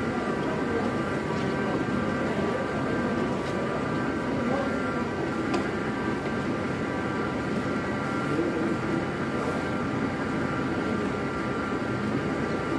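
Tea-leaf rolling machine running steadily, rolling steamed green tea leaves: a constant mechanical rumble with a steady whine of several tones above it.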